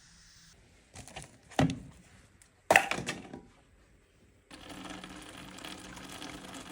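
A few knocks and a low thud, then one loud sharp crack, followed by a steady noise with a low hum.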